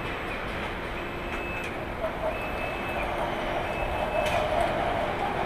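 Car assembly-plant din: steady machinery noise with an electronic warning beep that repeats about every second and a half. A louder machine whir joins about two seconds in.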